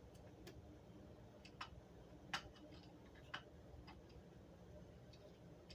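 Faint, irregular small clicks and taps, about half a dozen over several seconds, from small parts being handled and fitted into a display housing, over near silence.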